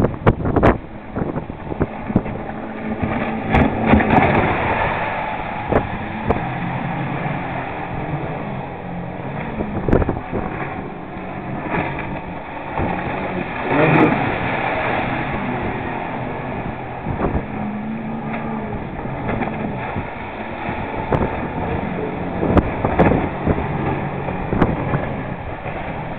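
Twin 40 hp outboard motors on a 5.6 m RIB running at speed, their pitch rising and falling as the boat turns and passes close. Hull spray surges loudest about fourteen seconds in, and wind buffets the microphone.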